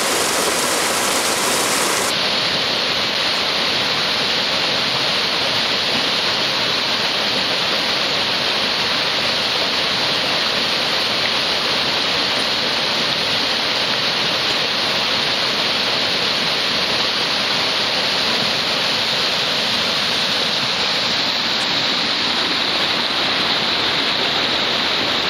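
Steady rush of fast water pouring down a wooden mill race and splashing around the horizontal water wheel of a Norse grain mill (kvernhus).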